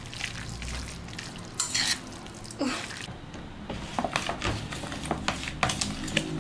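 A metal utensil scraping and clinking in a stainless steel bowl as marinated raw beef is mixed by hand. About three seconds in it changes to a fork tossing cut green vegetable stems in a plastic bowl, with many light clicks and taps.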